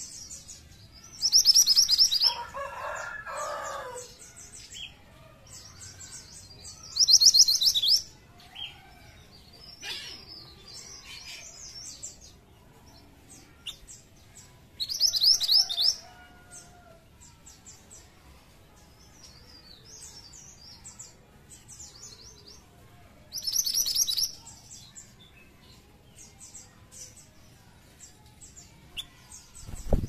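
Minivet song: four loud, rapid, high-pitched trills spaced several seconds apart, with softer scattered chirps between them. A lower call sounds under the first trill, and a short sharp knock comes at the very end.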